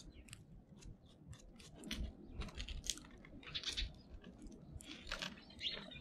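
Faint, irregular crunching and clicking from hands working at a snow-covered bird feeder, clearing out old bird feed. Crunching steps in snow come near the end.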